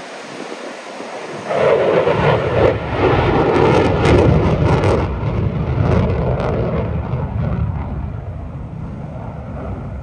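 F-35 fighter jet's single afterburning turbofan engine, with the afterburner lit, on a display pass. The rough jet noise swells sharply about a second and a half in and is loudest and crackling for the next few seconds, then slowly fades.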